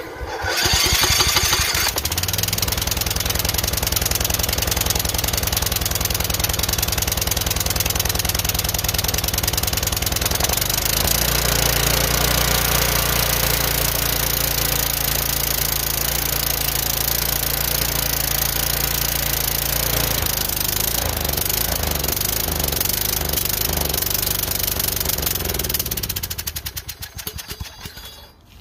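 A Troy-Bilt Super Bronco's 20 hp Kohler Courage single-cylinder engine catches on full choke and runs steadily, its note shifting about ten seconds in. From about twenty seconds it runs unevenly, then fades and dies near the end. The owner puts the poor running down to a leaking, faulty carburetor.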